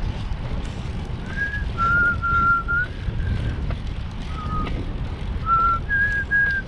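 A person whistling a tune: a string of short, clear notes that step up and down in pitch. Under it, steady wind rumble on the microphone of a moving bicycle.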